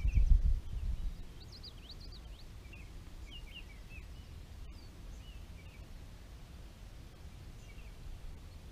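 Birds chirping in short, scattered high calls over a steady low rumble on the microphone, with heavier low buffeting in the first second.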